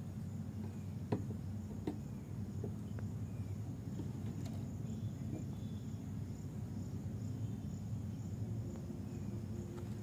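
Insects chirping in a steady, evenly pulsing high trill, over a low steady rumble, with a couple of faint knocks in the first two seconds.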